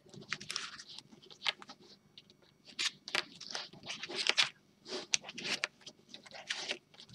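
Small cardboard oracle cards being slid across a table, gathered by hand and squared into a stack: a run of short, irregular papery scrapes and taps.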